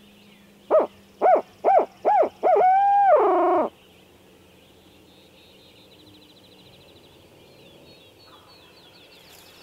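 Tube-style owl locator call imitating a barred owl, blown by a hunter: four short hoots, then a long drawn-out hoot that drops off at the end. It is the call turkey hunters use to make gobblers answer with a shock gobble. Faint songbird chirps follow.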